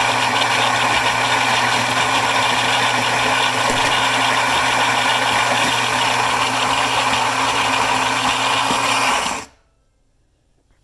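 Philips 3200 Series LatteGo espresso machine's built-in ceramic grinder grinding coffee beans for a single shot: a loud, steady motor whir with a constant low hum, which cuts off sharply about nine and a half seconds in.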